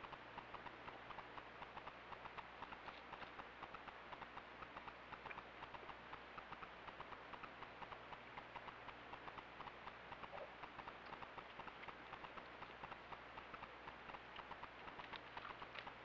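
Roe deer drinking close to the microphone: a steady run of soft, quick clicks, several a second, from lapping at the water, over faint hiss.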